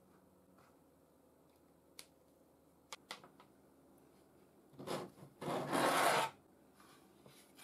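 3D-printed plastic parts rubbing and scraping against each other as a part is pressed and slid into a printed housing. A few light clicks come first, then a short scrape about five seconds in and a louder scrape lasting about a second right after it.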